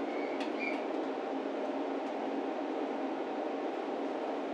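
Diesel railcar idling steadily, a continuous low hum. About half a second in come a couple of short clicks and a brief high tone.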